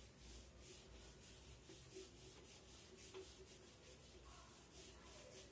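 Whiteboard eraser rubbed back and forth across a whiteboard, wiping it clean: faint, evenly repeated strokes, about two to three a second.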